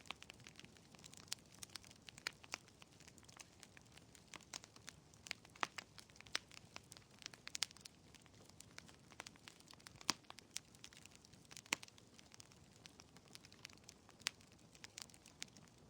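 Wood fire in a fireplace crackling: irregular sharp pops and snaps, several a second at times, over a faint steady hiss.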